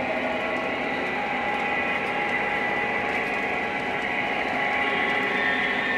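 Small camera drone's propellers whirring in steady flight, a layered whine of several pitches over a hiss, drifting slightly as the rotors adjust.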